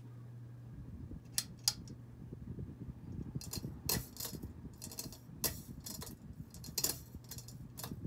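Hunter Discovery ceiling fan running with a steady low motor hum. After about a second a rough rumble of the fan's draft buffeting the microphone takes over, broken by a scattering of sharp clicks and light metallic rattles.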